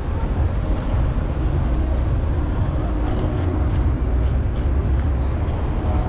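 City street traffic, a steady low rumble of passing vehicles.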